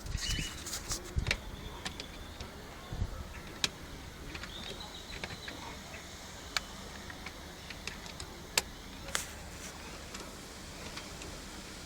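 Scattered light clicks and knocks of small channel-lock pliers gripping and turning a tight screw on a pickup's steering column, with a few dull handling thumps near the start.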